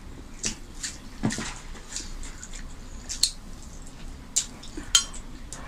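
Wet eating sounds of people eating rice and chicken curry by hand: chewing and lip smacks, with about six short, sharp smacks at irregular intervals.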